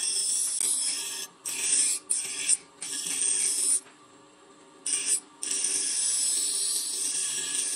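Steel being ground on a bench grinder wheel, a hissing rasp in several passes broken by short pauses. It stops for about a second some four seconds in, then resumes in a long steady pass. A faint low hum runs underneath.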